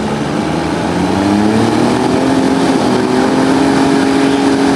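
Diesel garden pulling tractor's engine working hard under load as it pulls a weight-transfer sled. Its pitch climbs over the first couple of seconds, then holds steady at high revs.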